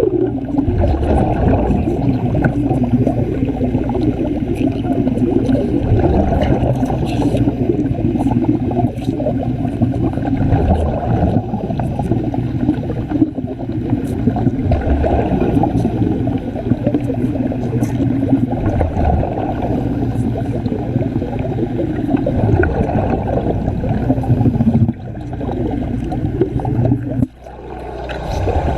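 Loud, steady bubbling and gurgling of water with a low rumble, dipping briefly near the end.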